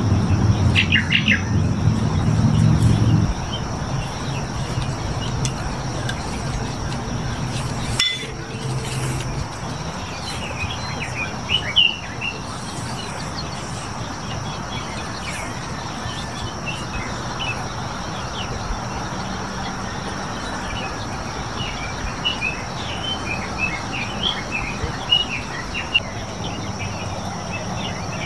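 Birds chirping and calling in many short, scattered notes over a steady high hum. A louder low rumble in the first three seconds stops abruptly.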